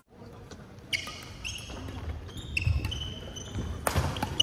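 Badminton doubles rally: court shoes squeaking briefly on the hall floor several times, and racket strikes on the shuttlecock, about a second in and again near the end.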